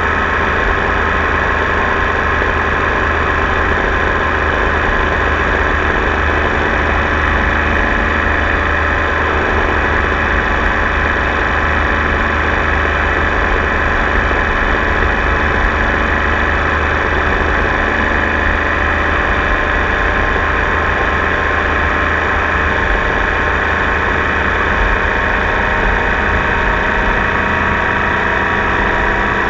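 Tiger Sport 800 motorcycle engine running at a steady, unchanging pitch, with a low rumble beneath it; the engine note starts to rise right at the end.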